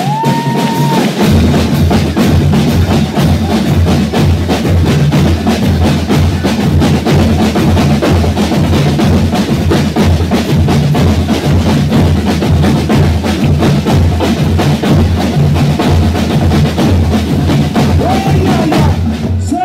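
Folia de Reis instrumental break: a band of snare drums and a bass drum beating a fast, dense rhythm, with accordion notes held underneath.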